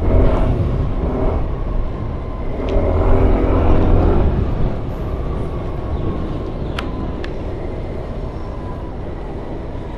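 Aprilia SR 160 scooter's single-cylinder engine running under way, with low wind and road rumble on the rider's mic. The engine note swells between about two and a half and four and a half seconds in as it pulls harder, then settles to a steady cruise.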